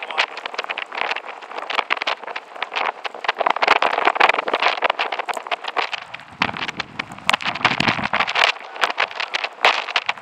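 Strong gusty wind buffeting the microphone, a rough rushing noise with many small crackles and knocks.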